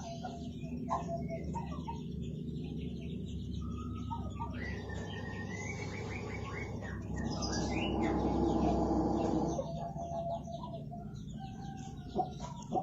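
Birds chirping and calling, with rising and falling gliding calls in the middle, over a steady low background rumble.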